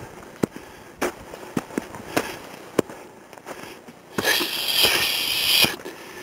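A hiker's footsteps crunching up a trail of trodden snow, roughly one step every 0.6 s. About four seconds in comes a loud, hissing rustle lasting about a second and a half, which is the loudest sound here.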